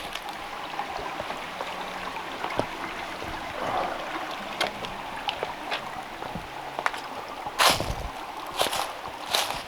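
Water of a small mountain stream trickling and gurgling steadily over rocks, with scattered footsteps on rocky ground and a few louder steps near the end.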